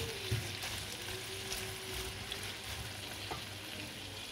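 Shredded cabbage and onions sizzling gently in olive oil in a large aluminium frying pan, being sautéed until the cabbage wilts and shrinks, with a wooden spatula stirring through them at the start.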